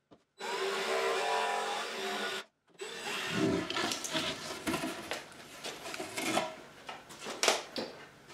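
Cordless jigsaw running steadily as it saws through plywood for about two seconds, then stopping. After a short break come several seconds of irregular knocks and clatter.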